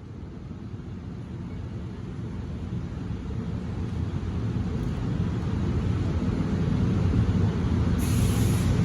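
EF64 electric locomotive hauling a train out, a low rumble that grows steadily louder, with a short burst of hiss near the end.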